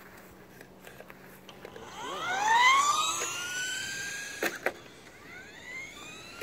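Radio-controlled car's motor whining, rising steeply in pitch as the car speeds up about two seconds in, then rising again near the end. Two sharp clicks in between.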